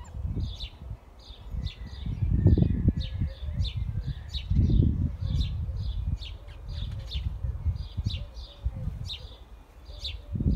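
A small bird chirping over and over in short, high notes, about two or three a second. Under it, low rumbling gusts of wind buffet the microphone, loudest between two and three seconds in and again near five seconds.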